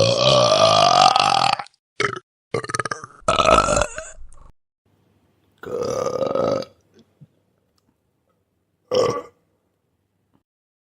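A string of human burps, about six in all. The first is long, about a second and a half, with a rising pitch. Shorter burps follow in quick succession, then a longer one about halfway through, and a last brief burp near the end.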